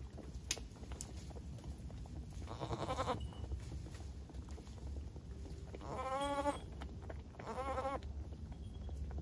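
Dairy goats bleating: three calls a few seconds apart, the last two with a wavering pitch.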